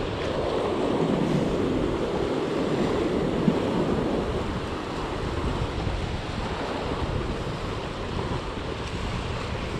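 Sea swell surging and washing over rocks, fuller in the first few seconds and easing after, with wind rumbling on the microphone. A single small click about three and a half seconds in.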